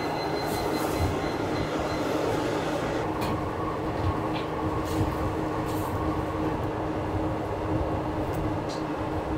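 Conveyor pizza oven running: a steady mechanical drone from its fans and moving wire-mesh belt, with a low hum. A few light clicks sound through it.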